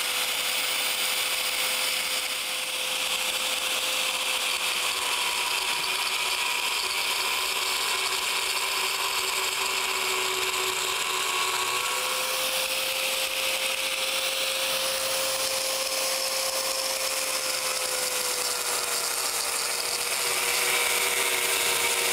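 Angle grinder with a carborundum abrasive wheel cutting through a fiberglass-reinforced polymer column, with a vacuum drawing off the dust beside the cut. It gives a steady motor whine under a harsh, hissing grind that runs without a break.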